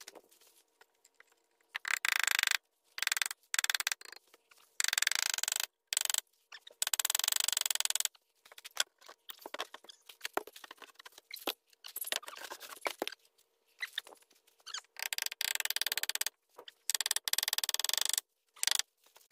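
Repeated bursts of scratchy rustling and scraping, with a few sharp clicks, from hands working under a wooden stair step among dry leaves.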